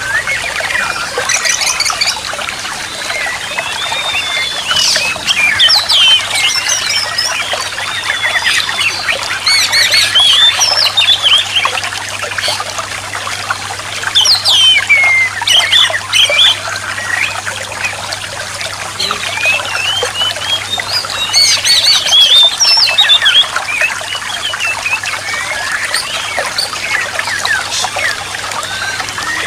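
Oriental magpie-robin (kacer) singing fast, varied phrases of whistled, sliding notes, loudest in bursts every few seconds, over a steady trickle of running water.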